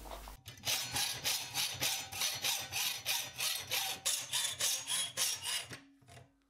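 Hacksaw cutting a thin (1 mm) plate of hardened and tempered high-carbon steel held in a bench vise: quick, even back-and-forth strokes, about three a second, with a hissing rasp. It starts about half a second in and stops near the end.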